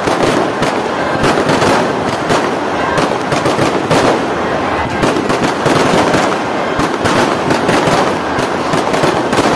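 Aerial fireworks bursting overhead in a rapid, unbroken barrage of bangs and crackles.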